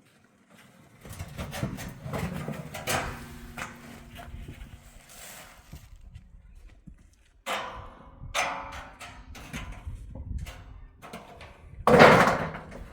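Irregular knocking, rustling and scraping from handling things, with one loud bang near the end.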